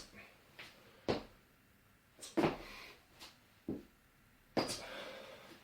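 About five sharp knocks roughly a second apart, some followed by a brief scuff: feet striking and sliding on the floor as a person in a deep squat straightens one leg, then the other.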